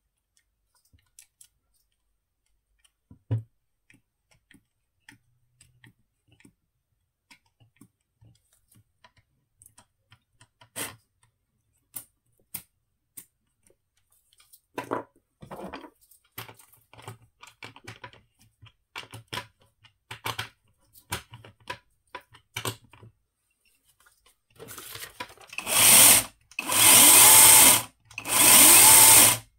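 Scattered clicks and knocks of the mini chainsaw's plastic body and chain being handled. Near the end, its battery-powered brushless motor runs in four short, loud bursts, each with a high whine.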